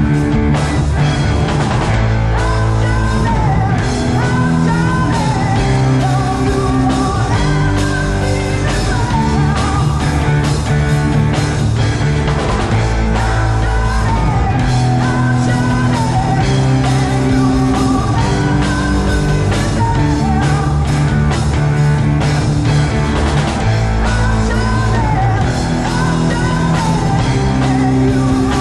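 Live heavy rock band playing on stage: distorted electric guitars, bass and drums with a sung vocal line over them.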